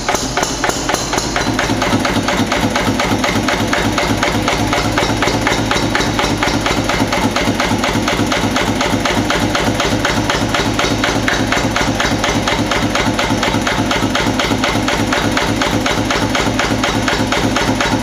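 National DSSH single-cylinder vintage oil (diesel) stationary engine running after starting, with a fast, even knocking beat. It builds over the first couple of seconds, then runs steadily.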